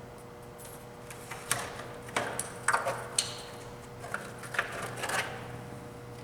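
Irregular knocks, clacks and short scrapes of something being handled on a machine table, over a steady electric hum.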